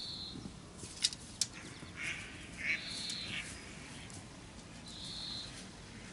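A bird calling three times in short, high, held calls about half a second long, with a couple of sharp clicks about a second in.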